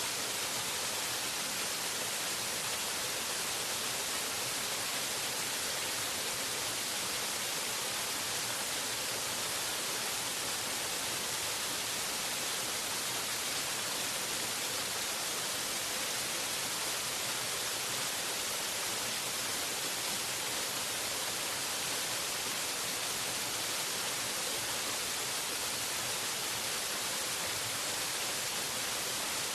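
Waterfall: a steady, unbroken rush of falling water, an even hiss that stays the same throughout.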